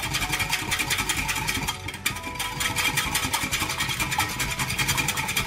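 Wire whisk beating milk in a glass measuring jug, its wires clicking rapidly and evenly against the glass as curd powder is dissolved.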